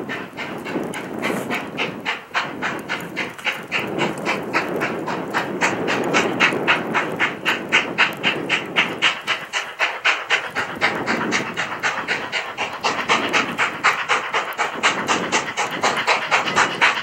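Canadian National 2-6-0 steam locomotive No. 89 working hard, its exhaust chuffing in a rapid, even beat that grows louder as it approaches.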